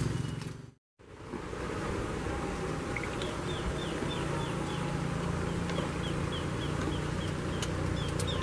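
Outdoor rice-field ambience: a steady low hum under an even hiss, cut by a brief dropout about a second in. From about three seconds in, a run of short, falling chirps repeats about three times a second.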